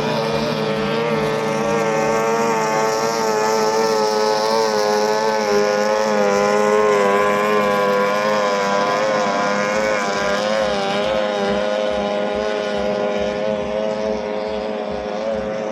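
An 18 hp outboard motor on a racing boat, running flat out at high revs. Its pitch holds steady with a slight waver, and it eases a little near the end.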